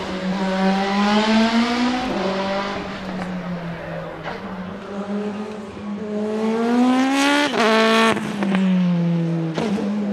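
Renault 21 Turbo 4x4 SuperTourisme's turbocharged 2.0-litre four-cylinder racing engine at high revs, pitch climbing through the gears with sharp breaks at gear changes about two seconds in and near eight seconds, with a few short cracks. After the second change the pitch falls as the car goes past and away.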